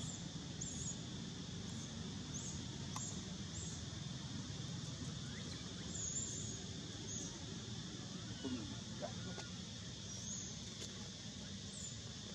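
Steady outdoor background hum with faint, short high chirps and a few thin squeaks scattered through it.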